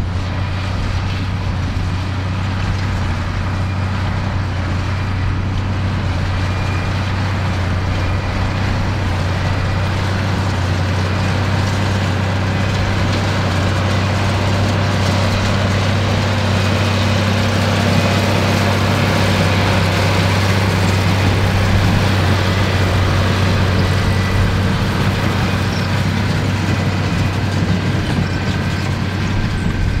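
Ford 8730 tractor's six-cylinder diesel engine running steadily under load, driving a Hesston big square baler. The engine drone comes with the clatter of the baler's machinery.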